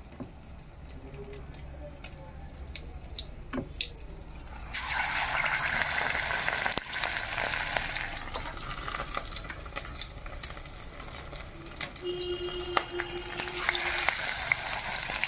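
Battered small fish going into hot oil in a kadai. A few light clicks come first, then about five seconds in a loud, steady deep-frying sizzle starts suddenly and carries on.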